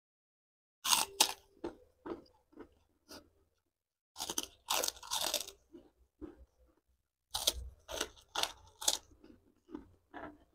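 Krupuk (Indonesian fried cracker) bitten and chewed close to the microphone. Sharp crisp crunches come in three bursts, starting about a second in, about four seconds in and about seven seconds in, with softer chewing crunches between them.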